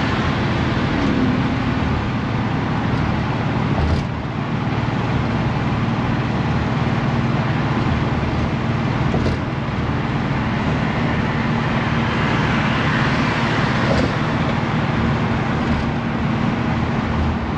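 A 1960 Edsel Ranger cruising steadily at freeway speed, around 55 mph, heard from inside the car: a continuous low drone of engine, tyre and wind noise. A few brief light knocks come through about 4, 9 and 14 seconds in.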